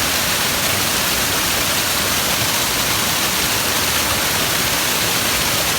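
Waterfall running high with water swollen by a typhoon: a steady, unbroken rush of falling water, strongest in the hiss.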